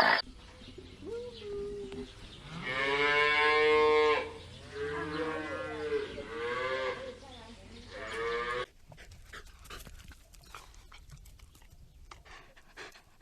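Cattle mooing: a short call about a second in, then a long loud moo and two more drawn-out calls. The calls stop abruptly at about eight and a half seconds, and faint clicking and rustling follow.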